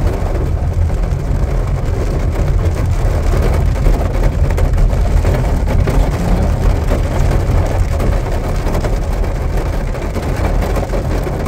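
Sedan driving in heavy rain: a steady low rumble of engine and tyres on the wet road, mixed with rain noise, with no change in engine speed.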